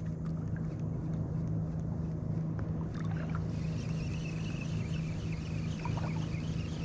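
Steady low hum of a distant motor, with a few faint ticks about three seconds in.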